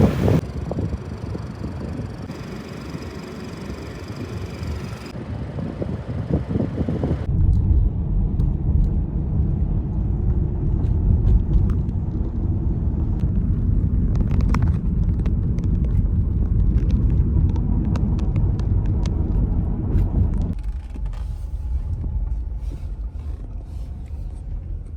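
Low vehicle rumble, strongest through the middle stretch, broken by several abrupt changes where separate recordings are cut together.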